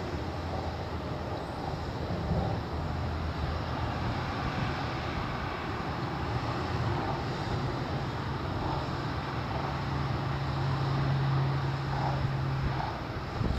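Steady low engine hum over outdoor background noise, stronger for several seconds near the end of the stretch.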